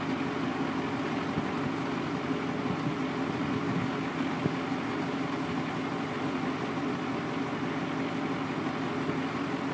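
Yard tractor's engine running steadily.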